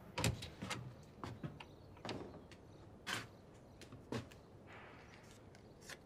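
Faint, scattered knocks and clicks of a door being handled and someone moving about close to it, about eight short strokes spread unevenly over a few seconds.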